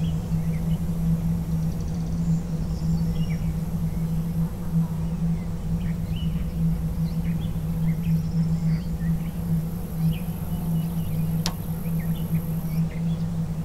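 A low, steady droning tone under rural outdoor ambience, with scattered short bird chirps and a high insect buzz that grows stronger about eight seconds in and drops away near the end. A single sharp tick comes late on.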